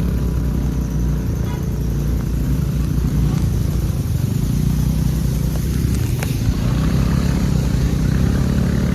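Motor scooter's engine running steadily under load, ridden slowly over a rough dirt road; the scooter struggles to pull.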